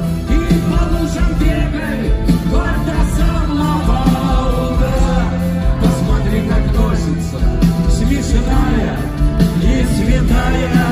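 Live rock band playing an instrumental passage: drums, bass, electric guitar and keyboards, loud and steady.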